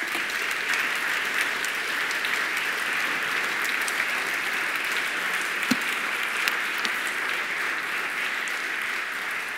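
Audience applauding, a roomful of people clapping steadily. One brief knock stands out a little past halfway.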